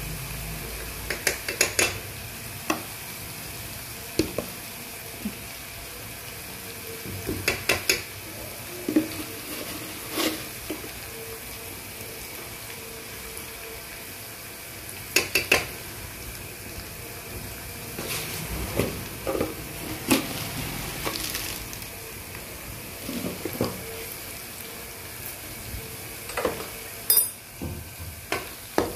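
Masala paste frying in oil in a non-stick wok, a steady sizzle, with steel spoons clinking against the pan several times as spices are tipped in.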